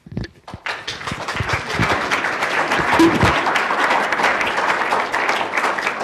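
Audience applause, swelling over the first two seconds and then steady.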